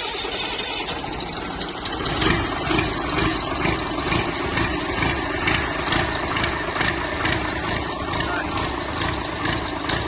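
Tractor engine running steadily, with a regular pulsing beat about two to three times a second that sets in about two seconds in.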